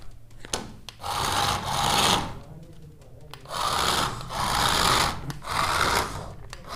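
Cheap toy remote-control car's small electric drive motor whirring in several bursts of a second or so, with short gaps between, as the remote's buttons are pressed and the wheels spin and the car runs across a tabletop.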